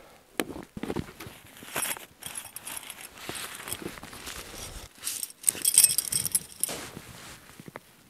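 Snowshoe steps crunching in snow, with clothing rustle and the light clinking of small metal gear. The clinking is loudest about two-thirds of the way through.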